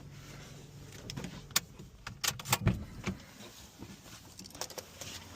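Sharp clicks and knocks in a car, the kind made by handling keys and the car's controls, clustered about two to three seconds in and again near the end, over a low hum that fades after about a second and a half.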